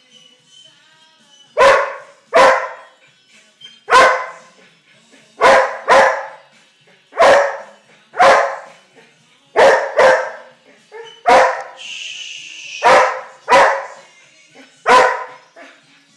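Wheaten Terrier barking loudly, about thirteen short barks, some in quick pairs, in an anxious fit that the owner traces to the ceiling fan.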